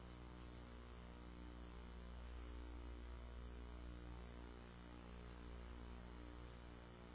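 Low, steady electrical mains hum with a buzz of evenly spaced overtones and faint hiss.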